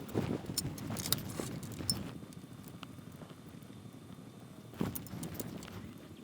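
Light clicks and taps from soldering work on a circuit board at a workbench, in two clusters: one in the first two seconds and a shorter one about five seconds in.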